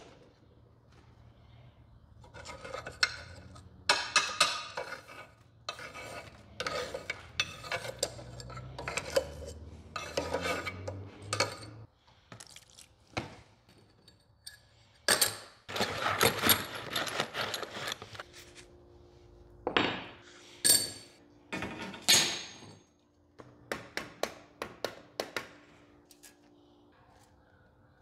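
Small pieces of drilled steel clinking and clattering as they are handled on a steel workbench, in irregular bursts with a dense run of clatter around the middle.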